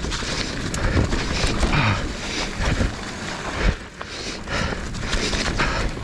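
Hardtail mountain bike riding over a rocky trail: steady tyre and trail noise with irregular knocks and rattles, and wind buffeting the microphone.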